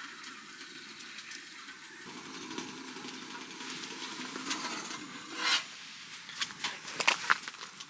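Metal camp mug handled on a wood-stove top: a short scrape about five and a half seconds in, then a few light clinks near the end as the mug is picked up, over a steady low hiss.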